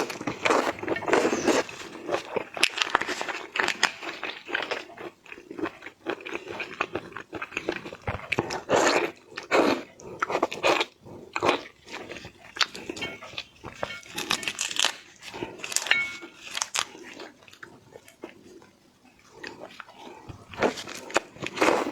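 Eating shell-on seafood: irregular crunching and biting through shells, with chewing between the bites.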